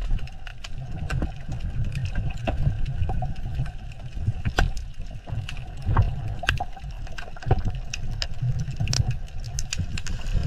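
Underwater ambience: a steady low rumble of water with many scattered sharp clicks and crackles throughout.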